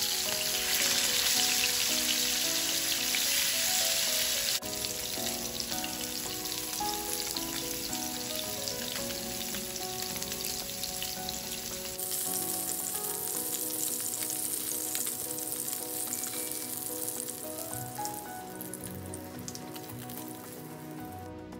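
Salmon fillets sizzling as they pan-fry in hot oil, a steady crackling hiss that is loudest in the first few seconds and shifts abruptly twice. A gentle melody of background music plays under it.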